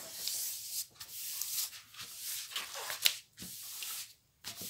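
A large diamond painting canvas and its protective paper cover rustling and rubbing as hands handle and smooth the sheet flat on the table, in several bursts with short pauses.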